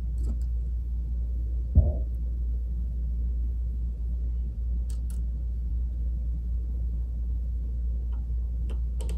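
Steady low hum, broken by a single thump about two seconds in and a few faint clicks as small metal distributor parts, a screw and washers, are handled on a wooden workbench.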